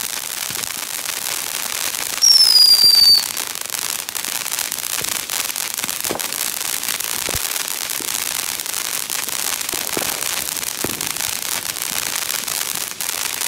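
Ground firework fountain spraying sparks: a continuous loud hiss with scattered crackling pops. About two seconds in, a whistle sounds for about a second, falling slightly in pitch, and it is the loudest part.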